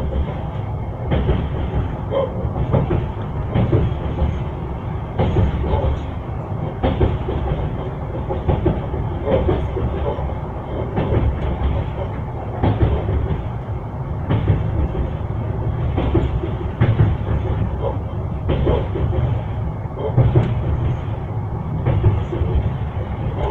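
Train wheels knocking over rail joints: a steady low rumble of a moving railway carriage with a clickety-clack knock every second or two.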